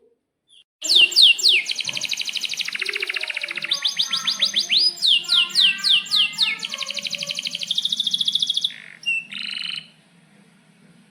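Domestic canary singing one long song of rapid rolling trills and quick downward-sweeping notes. It starts about a second in and breaks off near the nine-second mark, followed by a couple of short single notes.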